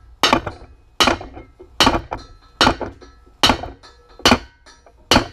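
Hammer blows on the driver of a camshaft bearing installation tool, driving a balance shaft bearing into a Jeep 3.7L cast-iron engine block. Seven sharp metallic strikes, evenly about one every 0.8 seconds, each ringing briefly.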